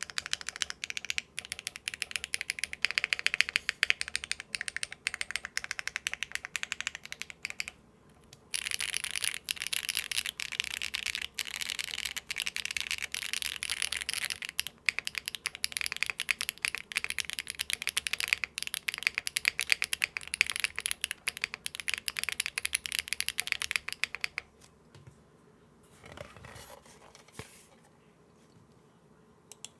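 Fast typing on an Akko M1 V5 mechanical keyboard with no foam, stock Akko Cilantro tactile switches and GMK keycaps: dense, clacky keystrokes that sound somewhat thin, which the owner puts down to the flex cuts letting air pass through plate and PCB into the empty case. The typing pauses briefly about eight seconds in and stops for good about 24 seconds in.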